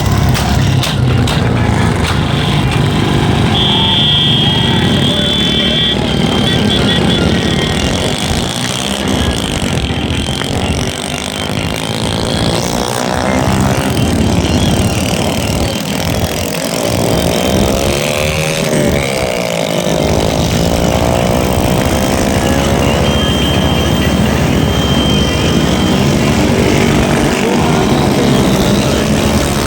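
Motor vehicle engines, motorcycles among them, running steadily close by, with the sound swelling and shifting in pitch as vehicles pass through the middle stretch.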